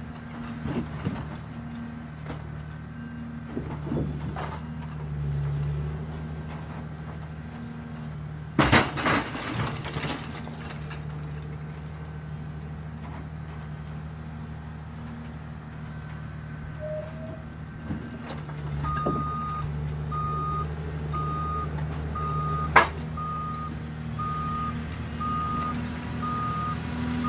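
Forestry forwarder's diesel engine running steadily while its crane handles logs, with a loud clatter of wood knocking about nine seconds in. From about nineteen seconds a reversing alarm beeps steadily, roughly once a second, and a single sharp knock comes near the end as the machine moves.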